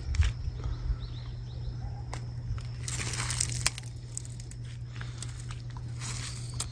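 Leaves and bramble stems of a wild raspberry bush rustling, with small snaps and clicks, as berries are picked by hand; the rustling grows louder about three seconds in and again near the end. A steady low hum runs underneath.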